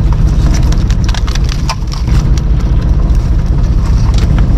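Boat engine running steadily underneath, with irregular clicking and crackling as a pile of shells, starfish and seabed debris from the trawl net is rummaged through by hand on the deck.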